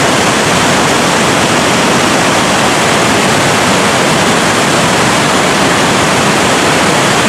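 Gullfoss waterfall rushing: a loud, steady roar of glacial meltwater pouring over the falls.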